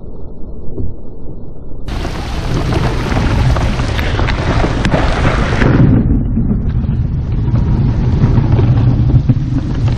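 Thunderstorm on open water: rain pelting the boat and lake, with thunder rumbling low underneath. The sound is muffled for the first two seconds, then fills out, and a deep rumble grows strongest in the second half.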